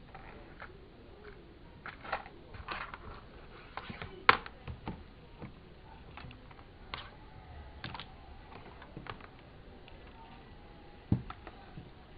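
Keys of an Acer E15 laptop keyboard being pressed in irregular taps and clicks, with a sharper knock about four seconds in and another about eleven seconds in.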